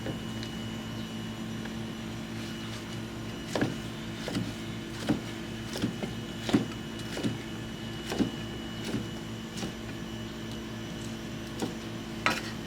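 Steady machine hum with a thin high whine. Through the middle there is a run of sharp knocks on a hard surface, about one every 0.7 seconds, and two more near the end.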